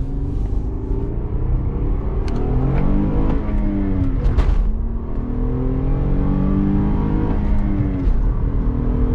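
2012 Acura TL's 3.7-litre V6 on its stock exhaust, accelerating hard through the gears: the engine note climbs with the revs, drops at a gear change about three and a half seconds in, climbs again and drops at a second shift about eight seconds in.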